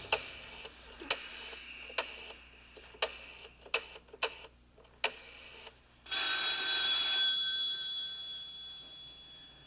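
Rotary telephone being dialed: a run of sharp clicks, mostly about a second apart. About six seconds in, a telephone bell rings once, loudly, and rings on, fading slowly.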